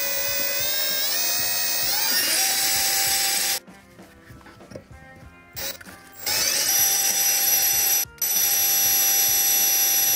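Cordless drill boring a hole through the brake pedal: a steady motor whine that rises in pitch as it spins up and stops about three and a half seconds in. After a pause it runs again twice in the second half, with a brief break between the two runs.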